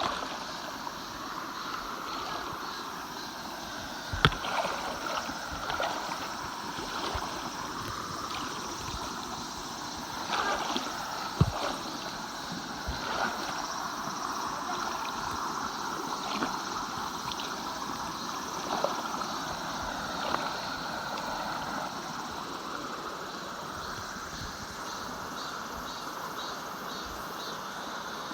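Mountain valley stream running steadily, with a few sharp knocks, the loudest about four seconds and eleven seconds in.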